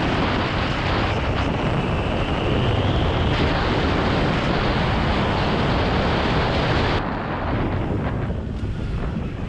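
Heavy wind rush on the microphone of a motorcycle riding at speed, over the motorcycle's engine. About seven seconds in the rush falls off and quietens as the bike slows behind traffic.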